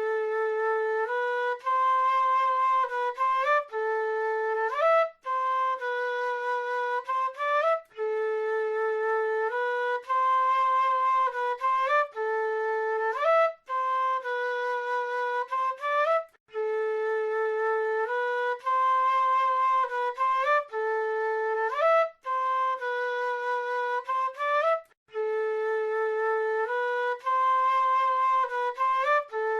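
A South American flute plays a slow, simple melody alone: held notes joined by quick upward slides, with short breaks between phrases. The same phrase repeats several times.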